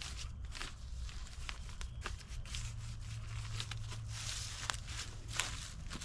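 Rustling and crunching in dry leaves and brush, with scattered sharp snaps and clicks.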